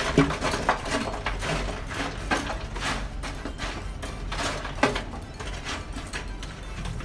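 Burning charcoal being raked and spread with a metal tool inside a steel half-drum grill: irregular scraping, clinking and knocking of coals against the metal.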